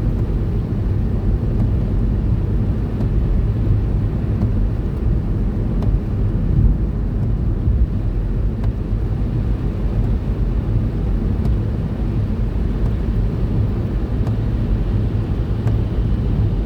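Steady low rumble of a car driving on a snowy motorway, road and engine noise heard from inside the cabin.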